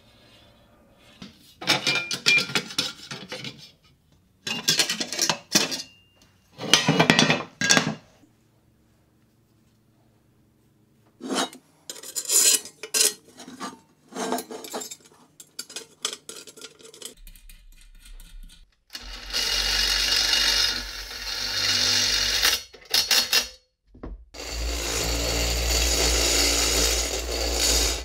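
Aluminum angle pieces scraped and clattered in three bursts, then scattered small knocks as a frame is put together. Near the end a cordless drill runs in two long runs of about four seconds each into the aluminum angle frame.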